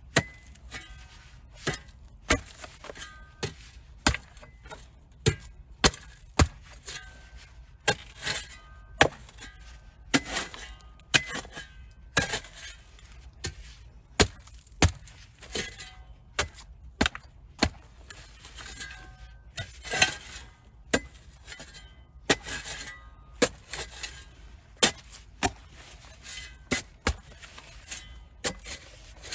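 Metal digging tool repeatedly chopping and scraping into soil, irregular sharp strikes about one or two a second, some with a short metallic ring.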